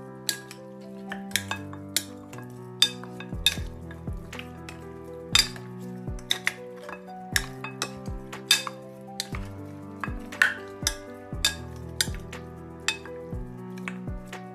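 A spatula knocking and scraping against a glass mixing bowl as seasoned ribs are stirred, with many irregular sharp clinks. Soft background music with held notes plays underneath.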